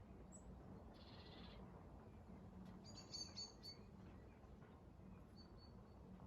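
Faint small-bird calls over quiet outdoor background: a short high trill about a second in, a quick series of chirps about three seconds in, and a faint call near the end.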